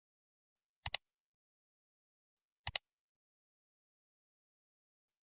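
Near silence broken twice by a short, sharp double click, about a second in and again near the middle.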